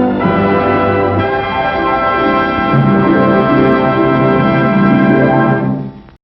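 Orchestral music with brass playing sustained chords, changing chord a couple of times, then dying away at the very end.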